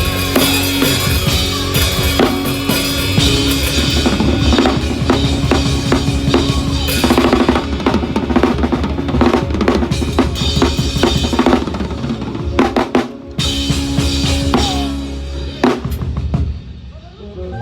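Drum kit being played with kick drum, snare hits, rimshots and rolls over sustained pitched instruments. It breaks off briefly twice in the last few seconds.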